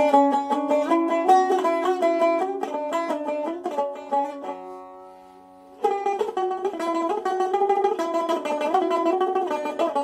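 Sazbüş, a long-necked saz neck on a Cümbüş metal-rimmed banjo-style body, plucked in a fast improvised run of notes over a steady drone of ringing strings. The playing stops for about a second and a half a little before the middle, letting the notes ring out, then resumes quickly.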